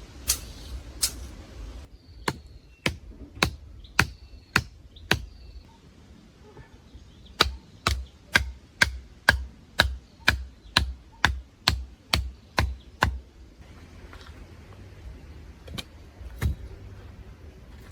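Repeated sharp blows of a hand tool: a run of about six strikes, then a faster run of about a dozen at roughly two a second.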